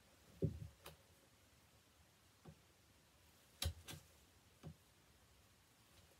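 A few scattered light clicks and taps from a hand tool working the tanned bear's lip skin into the mouth of the mount form. There is a dull thump about half a second in and a sharper click a little past halfway.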